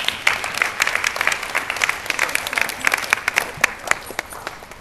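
A small group of people clapping, a rapid patter of individual claps that dies down near the end.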